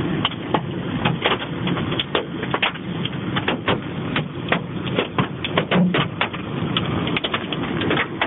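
Hailstones striking hard surfaces in an irregular clatter of sharp knocks, several a second, over a steady rushing noise of the storm.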